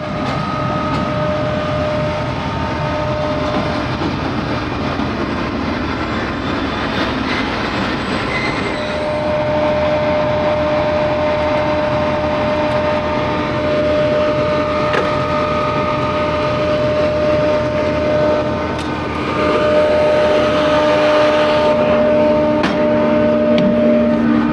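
Pakistan Railways GEU-40 diesel-electric locomotive standing close by with its engine running, a steady loud rumble with several constant whine tones. It grows louder a little over two-thirds of the way through, with a few sharp clicks.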